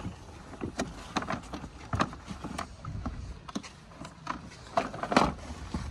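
Framed pictures knocking and clacking against one another as a hand flips through them in a cardboard box: irregular sharp knocks, the loudest cluster about five seconds in, over a steady low outdoor background.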